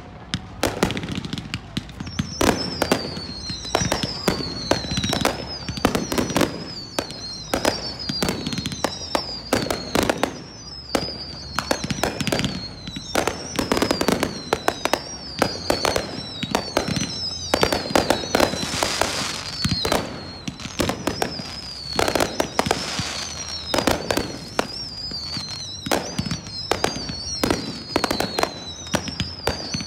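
Fireworks display: a rapid, continuous string of aerial shell bangs and crackles, with high whistles that fall in pitch repeating through most of it.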